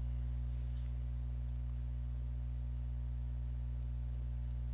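Steady low electrical hum, with a faint click or two.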